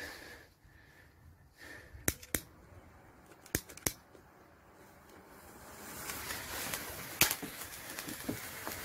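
A few sharp clicks, then from about six seconds in a trail of homemade black powder (potassium nitrate, sulfur and willow charcoal) catches and burns with a hiss that grows steadily louder, broken by one sharp crackle.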